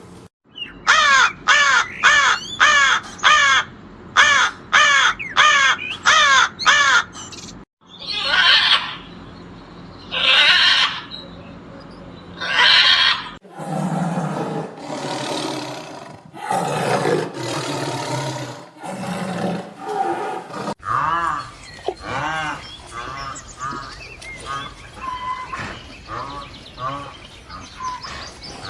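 Animal calls from several different animals in turn, with abrupt cuts between them: first a fast run of about fourteen short calls, then three separate harsh calls, then louder rough sounds, then a run of softer pitched calls.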